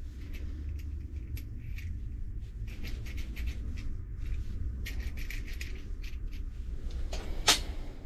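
Small brass pipe fittings clicking and scraping against each other as they are handled and screwed together, a run of light metallic ticks. Near the end there is one much sharper, louder click as a small fitting is set down on the steel workbench. A low steady hum runs underneath.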